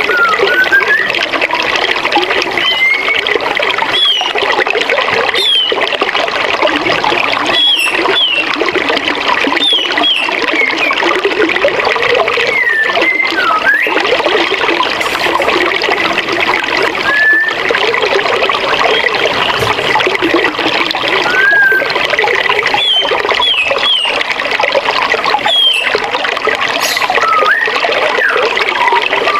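A forest river rushing and splashing steadily over a small waterfall, with birds chirping short rising and falling calls now and then throughout.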